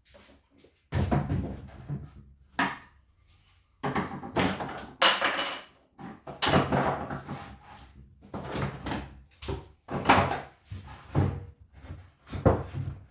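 Irregular wooden knocks, bumps and scrapes of plywood being handled and set down, some loud and some light.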